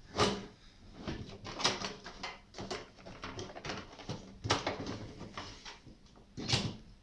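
Scattered clicks and knocks of plastic connectors, ribbon cables and the sheet-metal drive bay being handled inside an open desktop computer case, with a sharper knock just after the start and another near the end.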